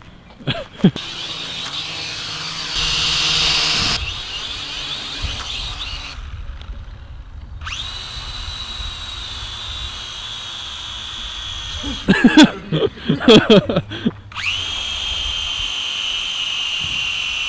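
Small toy quadcopter's four motors and propellers whining steadily at a high pitch while it hovers low; the whine dips and shifts a few times. About twelve seconds in, a short loud burst of voices cuts across it.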